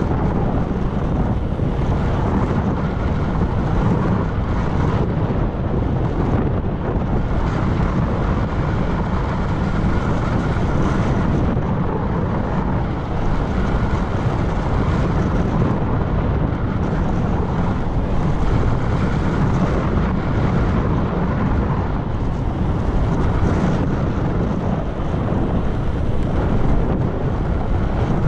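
Wind rushing over the microphone of a camera on a moving bicycle, a steady low rumble that stays even throughout.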